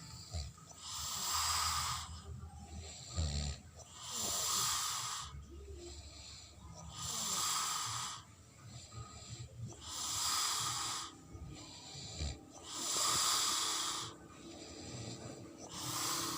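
A person snoring: breathy, rasping snores about every three seconds, each lasting a second or so.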